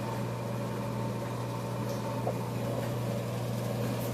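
AMMCO brake lathe running with its spindle spinning, a steady machine hum.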